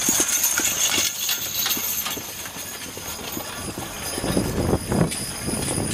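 Hoofbeats of a hitch of draft horses pulling a wagon close past on a dirt track, fading as the team moves away. A louder low rumble comes near the end.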